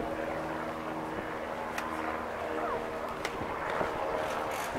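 Crowd of spectators chattering outdoors, with a steady low hum underneath and a few faint clicks.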